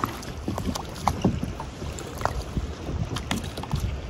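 Wind buffeting the microphone over choppy open water, with small waves lapping and splashing irregularly against a kayak.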